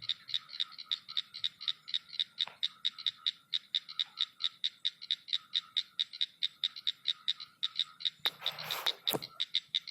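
A frog calling in a fast, even series of short clicking notes, about five a second. Near the end there is a brief rustle and then one sharp click.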